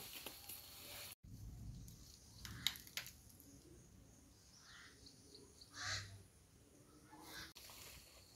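Faint outdoor ambience with two short bird calls, the louder one about six seconds in, and a few soft knocks before them.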